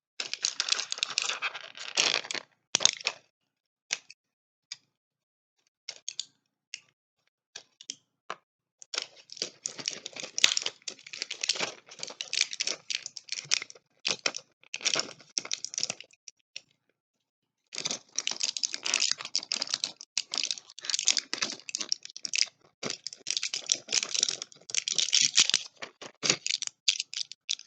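Crinkling and clicking from the packaging of a medicine tablet box being handled. It comes in dense stretches, with scattered single clicks for several seconds after the start and a short pause a little past halfway.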